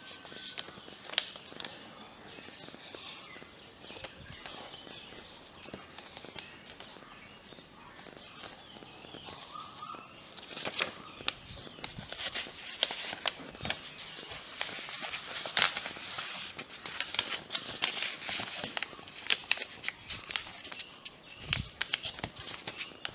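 Sheet paper being handled and folded: rustling and crinkling with many sharp creasing clicks, busier and louder in the second half.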